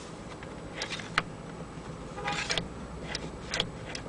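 Several sharp clicks of the car's memory seat buttons being pressed, over a steady low hum. The seats do not respond, a symptom of a faulty ignition switch.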